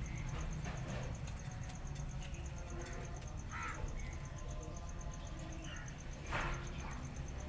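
A kitten pawing and scratching at cardboard, with two short scratchy rustles about three and a half and six seconds in. Behind them runs a steady, high-pitched pulsing chirp and a low hum.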